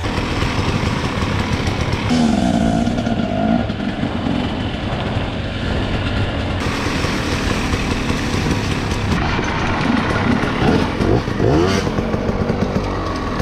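Off-road dirt bike engine revving hard under load, its pitch rising and falling again and again as the throttle is worked, typical of riding up a steep hill climb.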